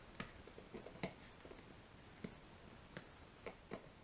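Faint, irregular clicks and taps, about six of them, from handling a vinyl seat cover as it is pulled round a motorcycle seat base.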